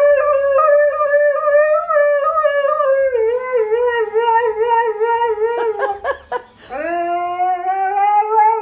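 A dog howling: one long, wavering howl, a short break about six seconds in, then a second long howl that rises slightly in pitch.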